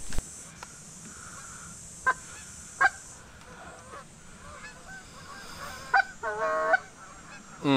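Geese honking: two short honks about two and three seconds in, faint calling between them, then a longer run of calls near the end.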